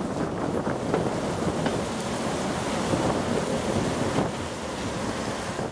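Airbus A320 jet engines heard from a distance during the landing roll-out, a steady rushing roar mixed with wind buffeting the microphone.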